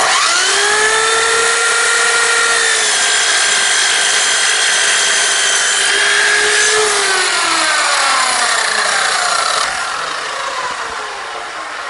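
Electric miter saw starting up with a rising whine and cutting through wood at a 45-degree angle. After about seven seconds the motor is released and spins down, its whine falling steadily in pitch.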